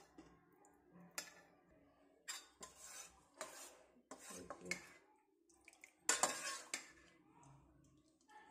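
Steel spoon stirring thick dal in a stainless steel bowl, clinking and scraping against the metal in a series of short knocks, loudest a little after six seconds in.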